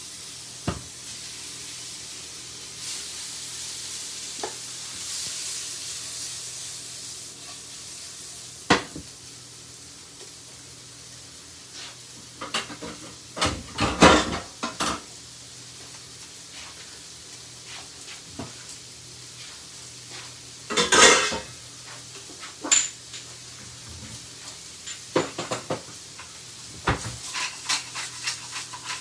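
Sliced sirloin steak sizzling in melted butter in a frying pan. The sizzle starts as the pieces hit the pan, and a utensil clatters against the pan several times as they are stirred.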